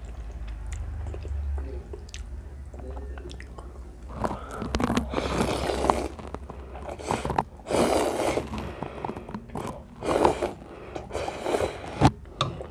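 Instant cheese ramen noodles slurped off a fork in about five loud, noisy pulls, starting about four seconds in after quieter chewing. A sharp click comes near the end.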